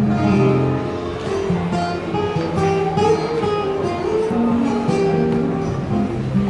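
Flamenco-style acoustic guitar music, plucked melody notes over strummed chords.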